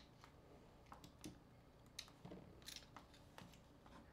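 Faint, irregular clicks and taps of a mobile phone's small plastic parts being handled and pried at during disassembly.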